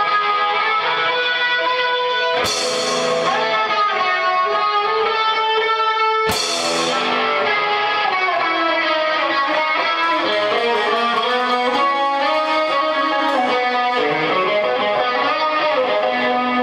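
Live band jam led by electric guitar playing sustained melodic notes over drums. Two cymbal crashes ring out, about two and a half and six seconds in.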